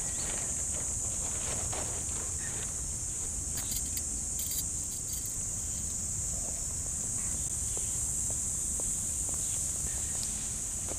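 Steady high-pitched chorus of insects, with a few faint clicks and knocks.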